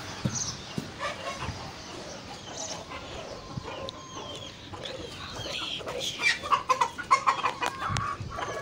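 Chickens clucking, the calls growing busier and louder over the last few seconds.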